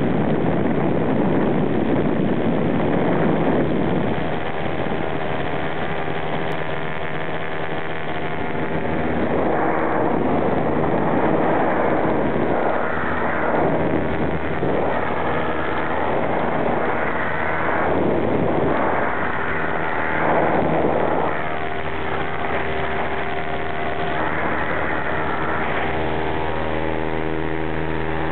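Paramotor engine and propeller running steadily behind the pilot in flight, with gusts of wind rushing over the microphone several times in the middle.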